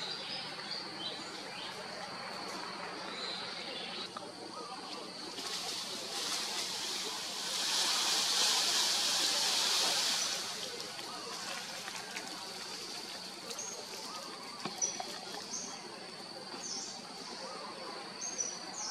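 Outdoor tree-canopy ambience: a steady high-pitched insect drone, joined about six seconds in by a louder hiss that swells and fades out after about four seconds. Short high chirps come in the last few seconds.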